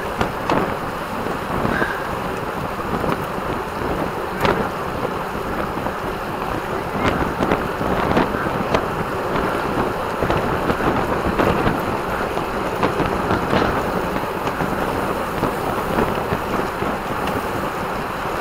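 Wind rushing over the microphone of a camera riding along in a road bike race: a steady rushing noise with a few sharp clicks.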